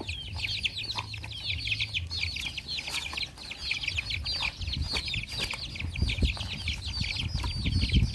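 Chicks peeping constantly, a dense stream of short, high, falling cheeps, with the puppies chewing and lapping from a metal basin underneath.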